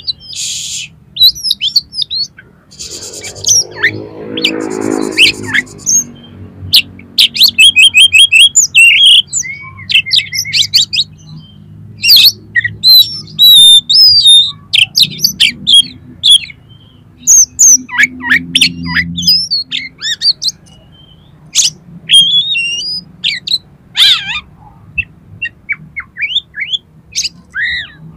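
Oriental magpie-robin (kacer) singing a loud, varied song of sliding whistles, chirps and rapid trills, with a lower, harsher call about four seconds in.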